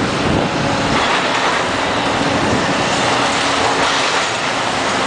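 Hydraulic excavators demolishing a brick building: diesel engines running with a steady hum under a loud, continuous clatter of breaking brick and timber debris.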